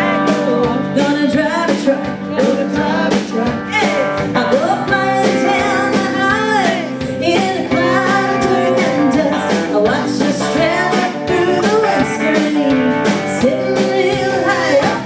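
Live band playing a song: a woman singing into a microphone over a steady drum-kit beat and electric bass guitar.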